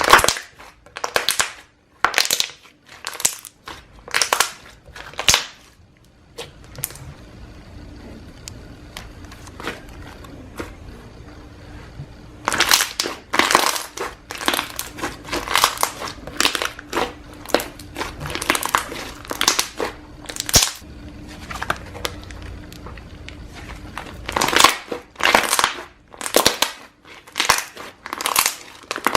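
Slime being squeezed and pressed by hand, giving repeated crunchy, crackling bursts about once or twice a second, with a quieter pause a quarter of the way in.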